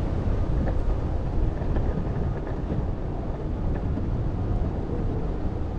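Wind buffeting the microphone over the steady rumble of an electric skateboard's rubber wheels rolling on cracked asphalt.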